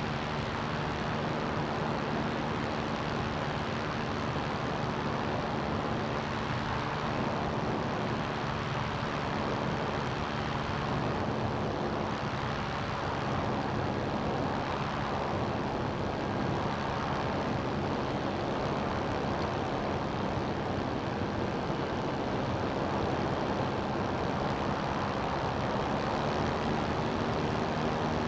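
CGS Hawk ultralight's engine and propeller running steadily in flight: a constant low hum under a rushing hiss, swelling slightly near the end.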